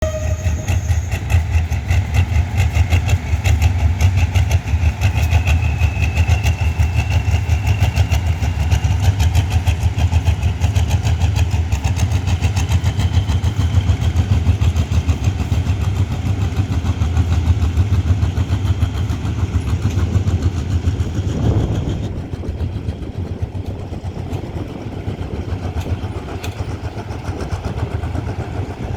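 General Electric diesel-electric locomotive pulling a train away, its diesel engine coughing and spluttering over a deep, rapidly pulsing rumble. A whine rises in pitch over the first several seconds, and the sound drops in level about three-quarters of the way through.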